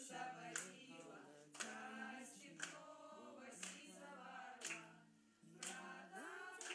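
A small group of young women singing together in Chinese without accompaniment, holding long notes, with a sharp clap about once a second keeping time.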